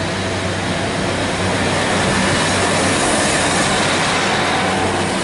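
Class 150 Sprinter diesel multiple unit passing close by. Its underfloor diesel engines drone steadily under wheel-on-rail rumble that builds to a peak about halfway through.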